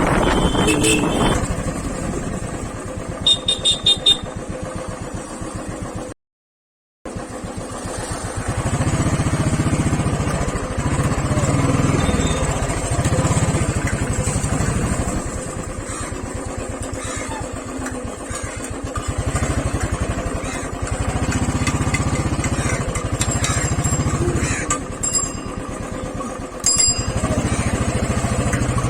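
Motorcycle engine running on the move, with several louder stretches as it accelerates. Short high-pitched beeps sound a few seconds in and again near the end, and the audio drops out completely for about a second early on.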